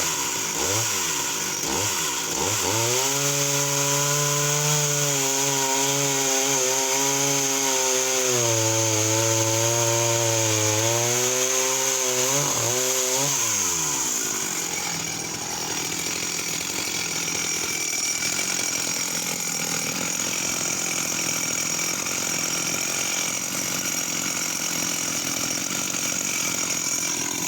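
Sachs Dolmar 111 52cc two-stroke chainsaw revving up, then held at full throttle through a cut in a log, pulling steadily without bogging down. About 13 seconds in the revs fall away and the saw runs on at a lower note.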